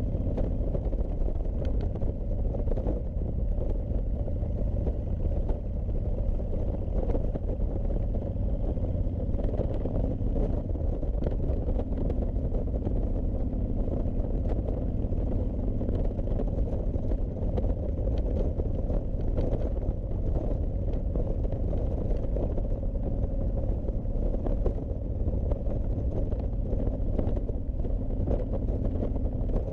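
Honda VTX1300C's V-twin engine running at a steady cruise under a heavy low rush of wind and road noise, with no revving or gear changes.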